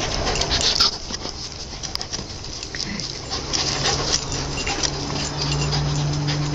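Greyhounds' paws pattering and scuffing as the dogs run about the yard, in many quick irregular clicks. A steady low hum comes in about three and a half seconds in.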